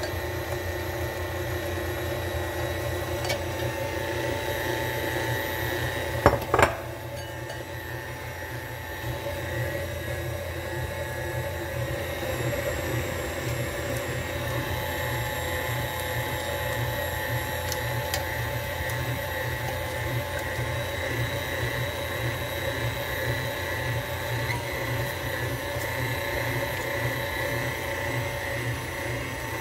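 KitchenAid stand mixer's motor running steadily with a constant whine as it mixes flour in its steel bowl. A brief cluster of sharp knocks comes about six seconds in.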